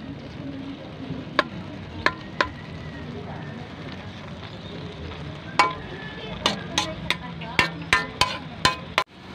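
Metal spatula clinking and scraping against an aluminium wok as food is stirred, a few strikes early on and then a quick run of them from about halfway, over a steady low sizzle of the liquid in the pan. The sound drops out briefly near the end.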